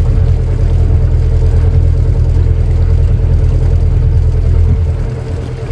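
Hired canal boat's engine running steadily with a low, even throb; the level drops slightly about five seconds in.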